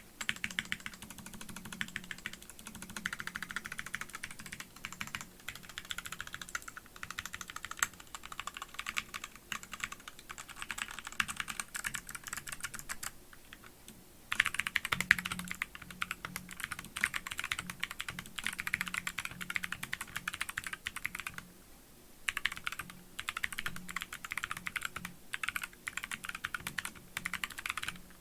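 Fast typing on a custom tenkeyless mechanical keyboard (GMMK TKL hot-swap board) fitted with pre-lubed Box White tactile switches: a dense run of key clicks, with two brief pauses about 13 and 22 seconds in.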